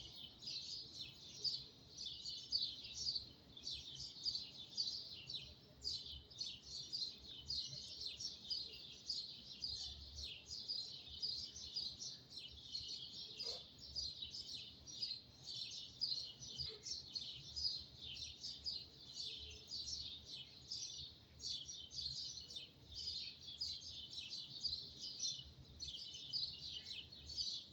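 Many small birds chirping at once in a dense, continuous dawn chorus of short, high, overlapping chirps.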